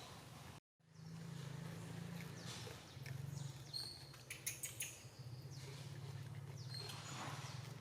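A monkey chewing fruit, with a short run of crisp crunching clicks about halfway through, over a steady low hum. Brief high chirps come now and then.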